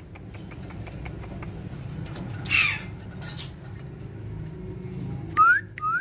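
Alexandrine parakeets calling: one loud harsh squawk about two and a half seconds in and a weaker one just after, then near the end three short rising whistles in quick succession. Faint light clicks are scattered throughout.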